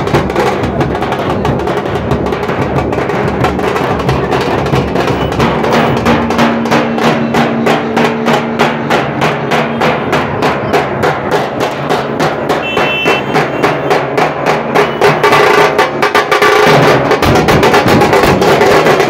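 A group of large double-headed dhol drums beaten with sticks in a fast, loud, continuous rhythm, the strokes packed into a rolling beat that grows louder near the end.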